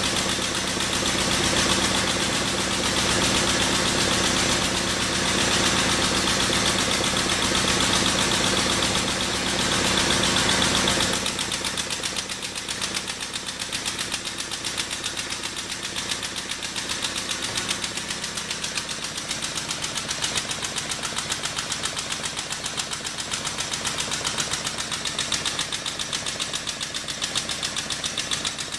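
A pump runs steadily with a fast, even pulsing as it drives an 8-ton hydraulic ram pushing a keyway broach. About eleven seconds in the sound drops and thins, then runs on more quietly.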